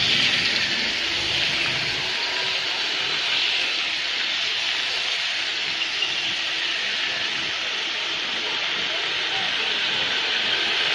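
Steady hiss of rain falling on wet pavement.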